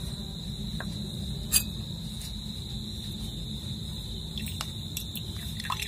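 A cricket trilling steadily on one high note over a low, even background hum, with a few light clicks, the clearest about one and a half seconds in.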